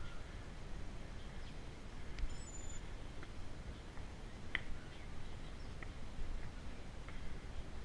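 Uneven low rumble of wind and movement on a camera carried by a runner climbing concrete stairs, with short bird chirps now and then; the clearest chirp comes about halfway through.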